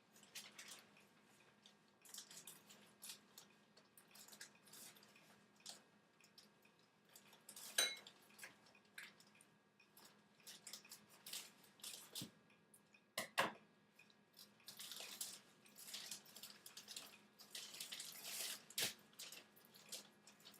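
Scattered small clicks and light knocks, with sharper knocks about 8, 13 and 19 seconds in, over a faint steady hum.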